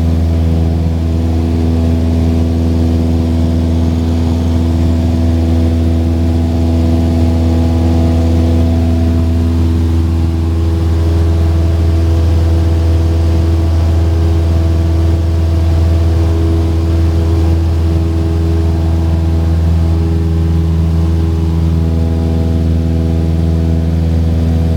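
Cessna 172S's four-cylinder Lycoming IO-360 engine and propeller heard from inside the cabin during the climb after takeoff: a loud, steady drone. About ten seconds in the higher hum shifts in tone, then returns near the end.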